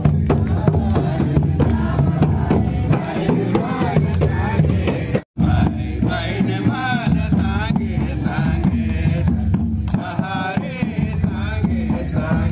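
Barrel-shaped hand drums beating steadily under group singing in a walking procession. The sound cuts out for a moment about five seconds in, then a man chants into a microphone over the drums and voices.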